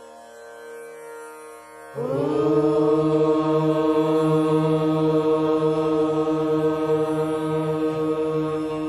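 A long chanted "Om" held steadily on one pitch, coming in loudly about two seconds in over a soft background drone.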